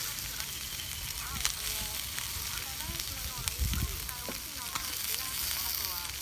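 Chicken sizzling steadily in a bushcraft frying pan over a campfire, with a few sharp pops of spitting fat and a low bump about halfway through.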